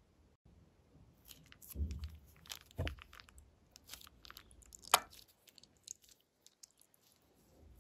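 Hands squeezing and wringing a plastic piping bag full of glossy slime: irregular sticky crackles and clicks of plastic and slime, the sharpest about five seconds in.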